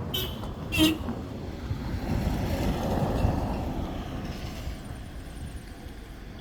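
A vehicle running with a steady low road rumble. Two short toots of a horn sound within the first second, and a swell of louder noise builds and fades around three seconds in.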